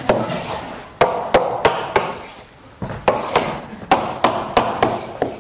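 Chalk writing on a blackboard: about a dozen sharp taps of the chalk striking the board, sometimes two or three in a second, with fainter scraping between them.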